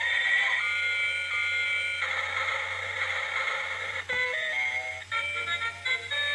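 Simple electronic tune: held beeping tones, then a quicker run of short stepped notes starting about four seconds in.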